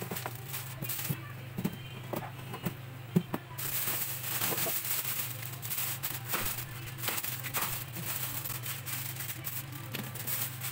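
Waffle batter poured onto the hot plates of mini waffle makers, with a sizzle that grows louder about three and a half seconds in and many small clicks, over a steady low hum.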